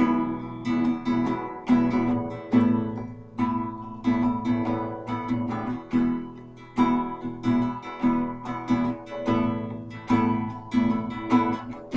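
Acoustic guitar strummed in a steady rhythm, with no singing: ringing chords struck about twice a second.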